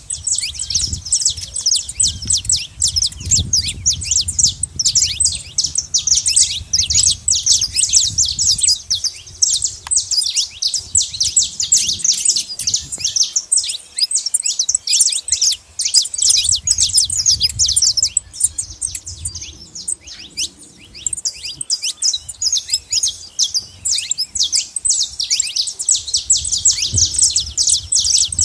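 Saffron finches chirping and singing in a dense, continuous stream of rapid high chirps, which thins out briefly about two-thirds of the way through.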